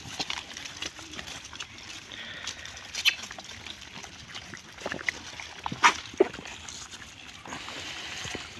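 A troop of rhesus macaques feeding on the ground: steady scuffling and rustling, broken by a few short sharp sounds, the loudest about six seconds in.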